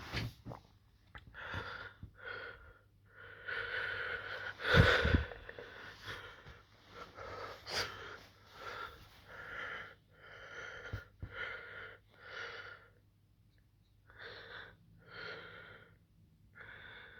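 A person breathing fast and heavily close to the phone's microphone, short wheezy puffs about every half to one second with a gap near the end, over a faint steady hum. A sharp thump about five seconds in, as of the phone being handled.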